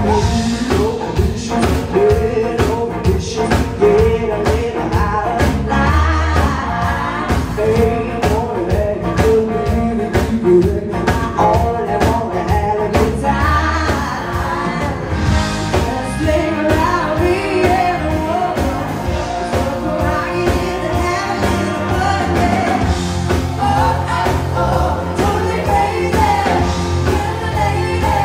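Live band playing a song with a singer over a steady beat and a strong bass line.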